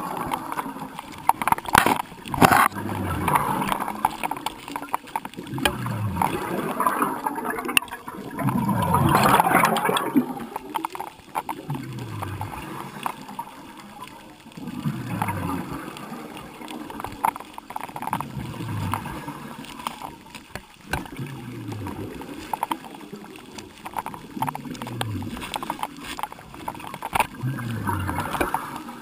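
Scuba diver's breathing heard underwater through the regulator, with exhaled bubbles burbling out in bursts every two to three seconds. The loudest burst comes about nine seconds in.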